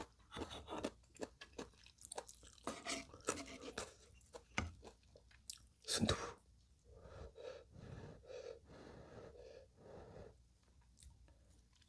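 Close-miked mouth sounds of eating ramen noodles with soft tofu: wet chewing clicks and smacks for the first half, a short sharp sound about six seconds in, then softer, quieter sounds as the next spoonful is raised.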